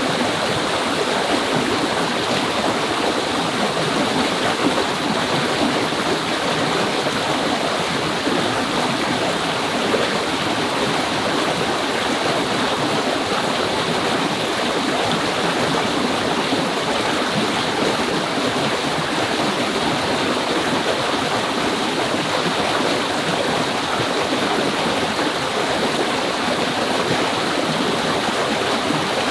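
Fast-flowing mountain stream rushing over rocks, a loud, steady water noise.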